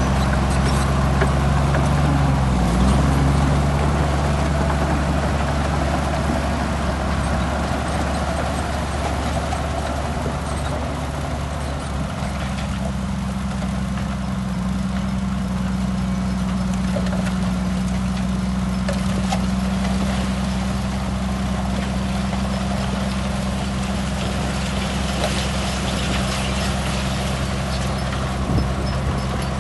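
Heavy earthmoving machinery's diesel engine running steadily. Its note dips briefly about three seconds in and settles into a steady higher note from about twelve seconds in.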